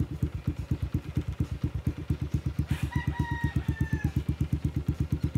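Yamaha Sniper 135's single-cylinder four-stroke engine idling, a steady putter of about twelve beats a second. About three seconds in, a rooster crows once: one long call that falls in pitch at its end.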